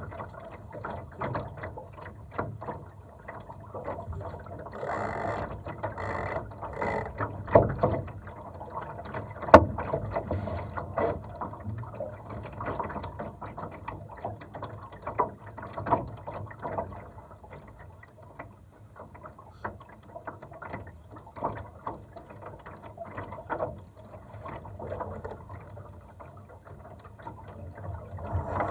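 Laser sailing dinghy under way in light wind: water lapping against the hull, with irregular clicks and knocks from the boat's rigging and fittings, the sharpest about nine and a half seconds in.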